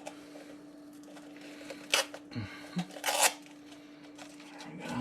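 Sandpaper scraping around the end of a cut copper pipe to clean it before fitting: two short rasps, about two seconds in and about three seconds in, the second a little longer, over a steady low hum.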